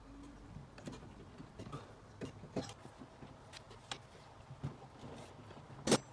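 Scattered light clicks and taps of hand tools and small engine parts being handled during engine assembly, with one sharper click near the end.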